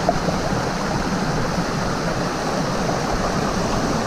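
Shallow rocky mountain creek flowing over stones and small cascades: a steady, even rush of water close by.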